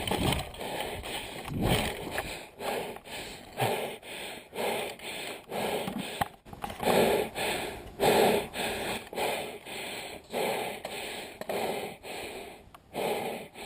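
A person breathing hard and fast in a steady rhythm of heavy, noisy breaths close to the microphone, winded from running.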